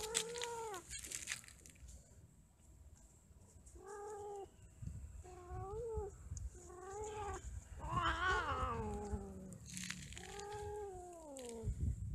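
Domestic cats yowling while mating: a series of about six drawn-out calls, each half a second to over a second long. The longest and loudest call comes past the middle and slides down in pitch.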